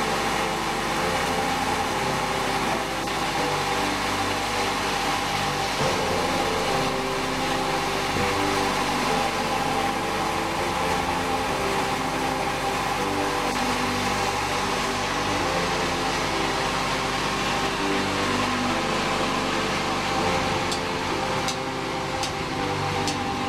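Sawmill machinery running steadily, a constant mechanical hum and noise, with a few sharp clicks near the end.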